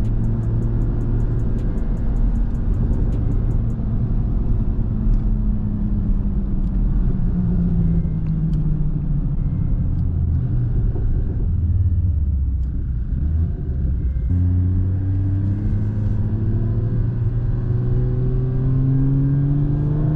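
BMW 340i's turbocharged inline-six (B58) engine running while driving, with road rumble underneath. The engine note falls gradually as the car eases off, then about 14 seconds in it picks up and climbs steadily as the car accelerates.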